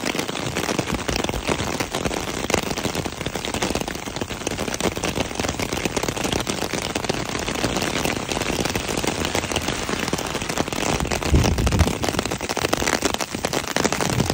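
Heavy rain falling, its drops hitting close to the microphone as a dense, steady crackle of tiny impacts. A brief low rumble comes through about eleven seconds in.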